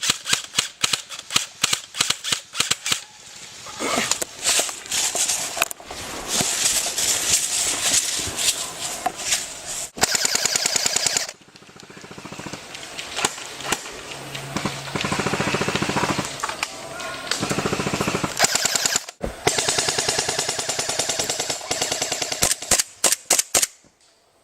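Airsoft electric guns, among them a G&G GR-16, firing a crackle of single shots and short bursts. Then come several long full-auto strings of rapid shots, each lasting a few seconds.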